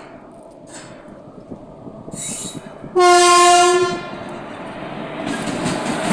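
Indian Railways passenger train's horn sounding one steady blast of about a second, the loudest sound. After it, the train's running noise grows louder.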